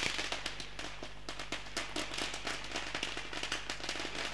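A string of firecrackers crackling in rapid, irregular pops, over a steady low electrical hum.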